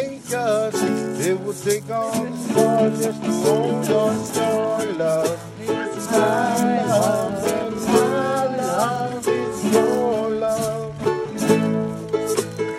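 Ukulele and acoustic guitar strummed together in a steady rhythm, playing a pop medley over the common A, D, F♯ and E chord progression, with a voice carrying a wavering melody on top.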